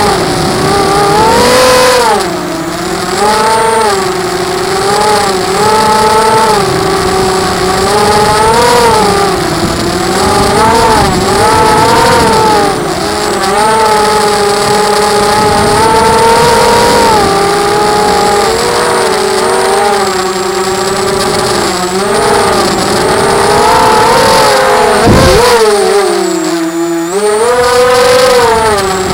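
ZMR 250 FPV racing quadcopter's motors and propellers whining, the pitch rising and falling constantly with the throttle. Near the end the pitch drops briefly, then climbs back up.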